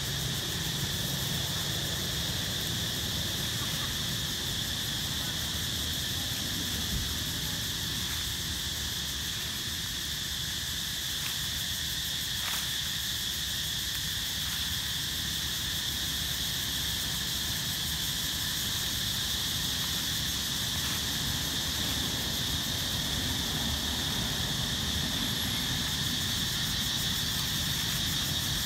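Steady chorus of insects, a continuous high-pitched drone that never breaks.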